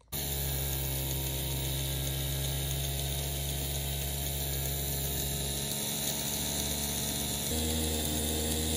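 1950s TMY horseshoe electric motor with its brass gear train, started on a 3-volt battery and running with a steady whirring hum. About seven and a half seconds in the pitch shifts and the hum gets slightly louder.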